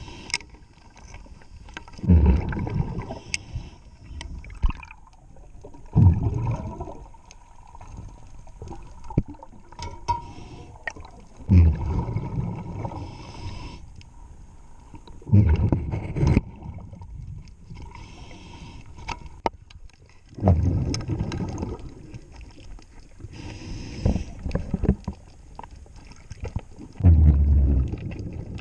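Scuba diver breathing through a regulator underwater: a rush of exhaled bubbles about every four to five seconds, six times, with faint clicks and taps between.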